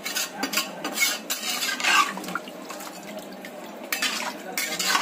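A spatula stirring watery curry in an aluminium pressure cooker pot: the liquid sloshes, and the spatula scrapes and knocks against the pot's metal side several times.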